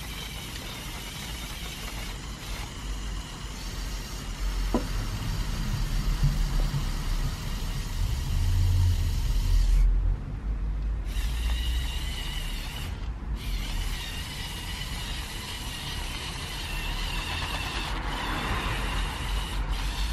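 The small electric motors and plastic gear trains of a remote-controlled Lego Technic 42030 Volvo L350F wheel loader whine as it raises its bucket and drives through snow. The whine stops briefly twice, about ten and thirteen seconds in, over a low rumble that is loudest just before the first stop.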